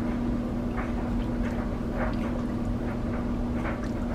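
Silicone spatula stirring a thin butter, flour and chicken-broth sauce in a ceramic-lined pot, with a few faint, irregular scrapes and sloshes over a steady hum.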